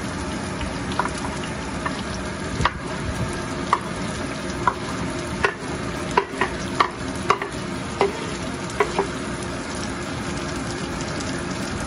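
Sliced red onions sizzling as they drop into hot oil in a pan, with a metal spatula scraping and sharply tapping on the wooden cutting board and pan about a dozen times.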